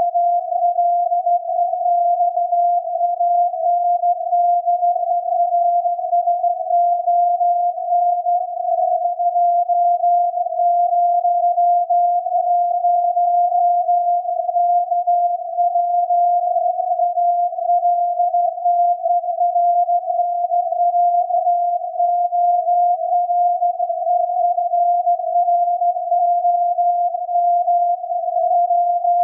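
SAQ Grimeton's 17.2 kHz VLF transmission from its Alexanderson alternator, received on a loop antenna and software-defined radio and heard as a single steady, unbroken tone. The tone wavers slightly in loudness, with no keying breaks.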